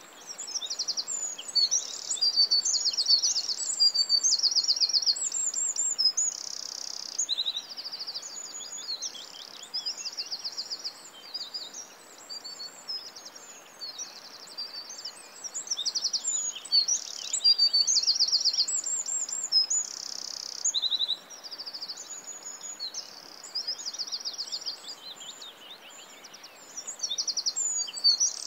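Birds singing continuously in fast trills, chirps and rapidly repeated high notes, over a soft steady background hiss.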